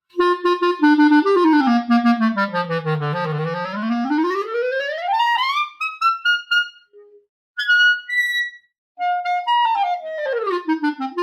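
Clarinet played through a 100-year-old wooden Buffet mouthpiece on a Vandoren Blue Box strength 3 reed: a stepwise run down to the lowest register, a smooth climb up into the high register, a few short high notes, then another quick run down near the end. The player finds the back pressure too great with this reed on the fairly closed facing.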